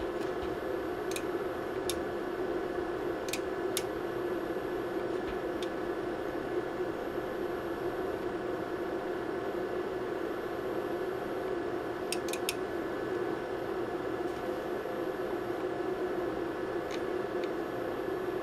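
Steady hum and whir of bench test equipment cooling fans, with a few faint, sharp clicks scattered through it.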